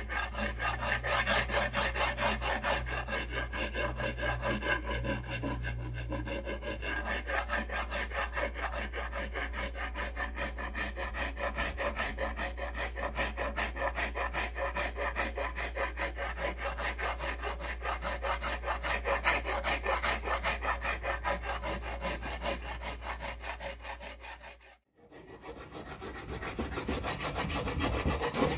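Hand rasp filing a new wooden axe handle in quick, even back-and-forth strokes, thinning and shaping the wood where it meets the axe head. There is a brief break near the end, then the rasping picks up again along the handle.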